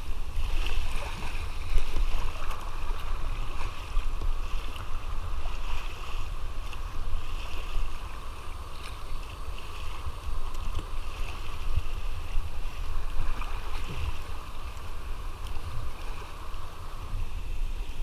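Whitewater kayak running down a fast, high creek: a steady rush of water along the hull, broken by irregular splashes of paddle strokes, over a low rumble.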